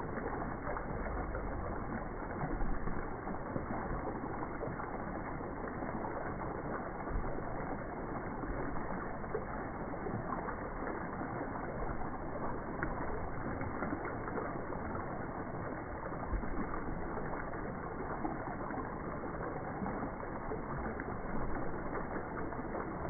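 Waterfall: water falling and rushing in a steady, even stream.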